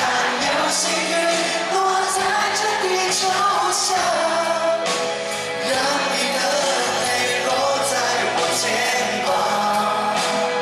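A male vocalist sings a Cantopop song with a live band of keyboards, other instruments and drums.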